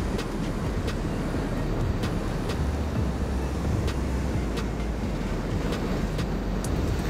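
Rough sea surf breaking and churning against shoreline rocks, with strong wind buffeting the microphone as a steady low rumble. A few faint ticks are scattered through it.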